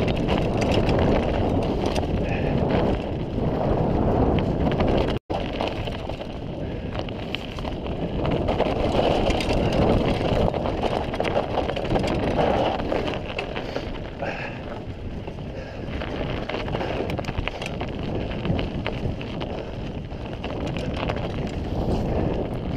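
Mountain bike riding over a rough grassy track: wind buffeting the action camera's microphone over the tyres' rumble and a steady patter of small rattles and knocks from the bike. The sound drops out for an instant about five seconds in.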